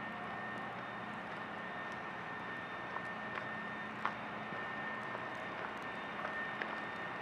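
Quiet city street ambience: a steady hum of distant traffic with a faint steady high whine, and a few light clicks scattered through it.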